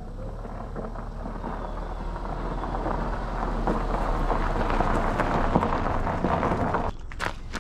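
Honda Odyssey RB1 minivan's 2.4-litre four-cylinder engine running as the van rolls slowly past over a gravel driveway, with the tyres crunching on the stones. The sound grows louder as the van approaches and drops away sharply near the end, followed by a few sharp clicks.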